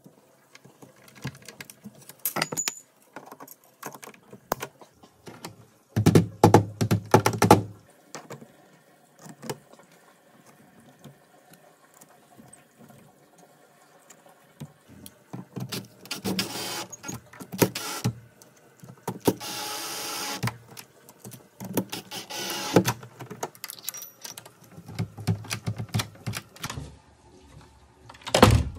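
Metal clicks, scrapes and rattles of pliers and door-lock hardware being worked by hand, with a dense run of rattling about six seconds in. A steady hiss lasts about a second and a half roughly two-thirds of the way through.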